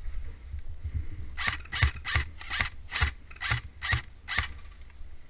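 Airsoft gun firing single shots in quick succession, about eight sharp clicks over three seconds starting a second and a half in.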